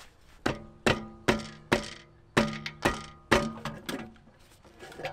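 About eight sharp metallic clangs, like hammer blows on metal, in two quick runs of four about half a second apart, each ringing briefly before the next.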